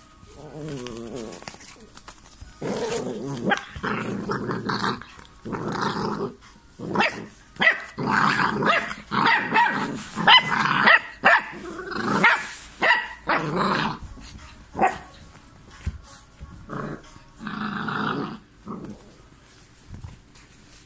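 American Staffordshire terrier puppies play-fighting, growling and giving short barks in repeated bursts, with a lull of a couple of seconds past the middle.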